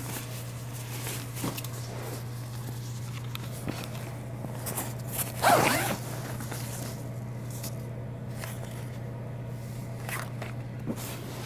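The zipper of a cloth-diaper wet bag being pulled open, with rustling of the fabric and the folded diapers inside. The loudest zip comes about five and a half seconds in, over a steady low hum.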